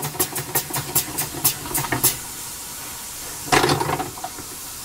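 Mamod horizontally opposed steam engine's exhaust beats, about four to five a second and spreading apart, die out about two seconds in, leaving a steady hiss of steam; one brief louder burst comes near the end. The engine is running too slowly and stalling.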